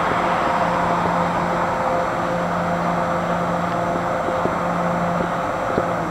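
MBTA commuter train of bi-level coaches running through the station: a steady rush of train noise with a steady low hum, and a couple of faint clicks in the second half.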